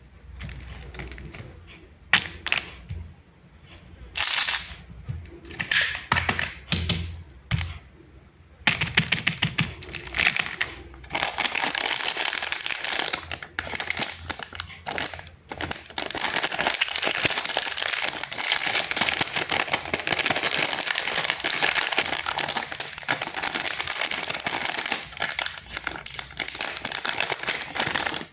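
Candy packaging being handled: a few separate rustles and taps, then from about nine seconds in, continuous crinkling of the wrapping.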